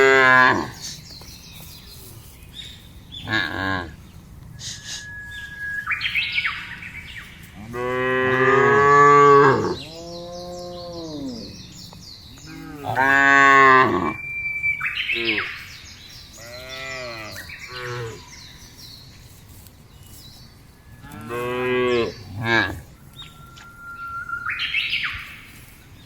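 Cows mooing repeatedly: about seven drawn-out calls that bend in pitch, the longest lasting nearly two seconds about a third of the way in.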